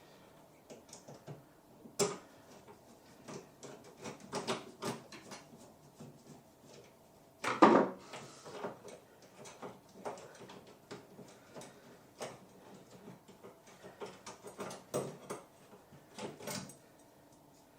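Intermittent clicks, taps and clatter of small hardware and tools being handled. There is a sharp click about 2 s in and a louder knock about 7.5 s in.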